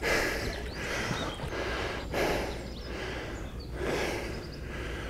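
A man breathing hard, about four loud puffs of breath in a few seconds.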